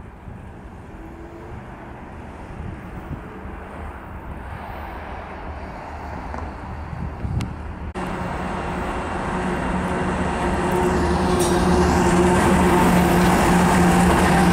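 A low, fairly quiet rumble, then from about halfway a consist of GE and EMD diesel freight locomotives approaching and passing close by, their engines' steady drone growing louder.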